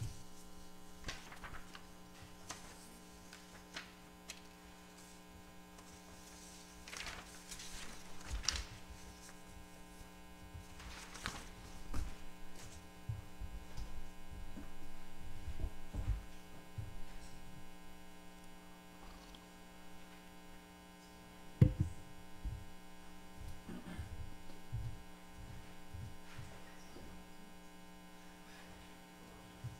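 Steady electrical mains hum on the lectern microphone's sound feed, with scattered knocks and rustles of things being handled at the lectern. The loudest is a sharp knock a little past the middle.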